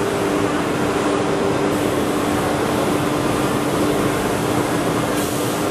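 Steady machinery noise in a woodworking machinery exhibition hall: an even rushing noise with a constant low hum running through it.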